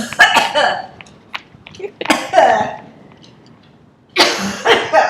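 A person coughing in three hard fits, choking after breathing and swallowing at the same time.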